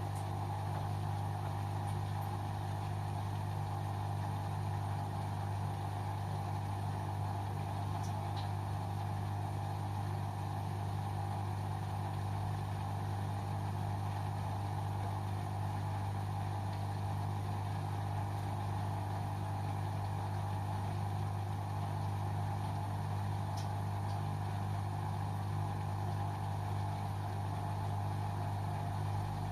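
LG washing machine running on a 30° synthetics programme, giving a steady, unchanging hum.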